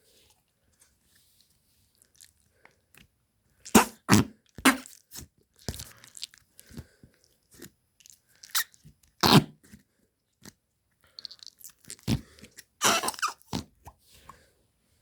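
Fart sound effect: a string of short, irregular bursts in uneven groups, loudest about four and nine seconds in, with a dense cluster near the end.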